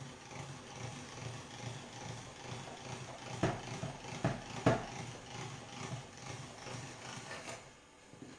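Hand-cranked pasta machine rolling a sheet of dough, its rollers turning with a low, uneven rumble and three sharp knocks near the middle; the rumble stops shortly before the end.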